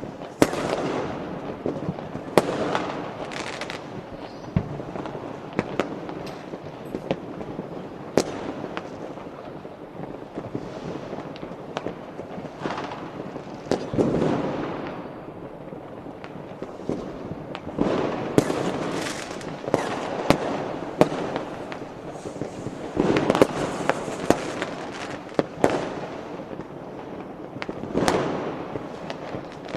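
Many fireworks and firecrackers going off: irregular sharp bangs and cracks, each followed by a fading rumble, with denser and louder volleys several times.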